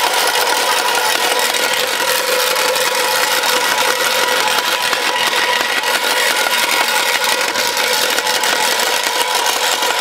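Plugged-in electric motor of a homemade GoPro test skid running steadily, swinging a long steel bar. It gives a steady hum with a fast rattle running through it.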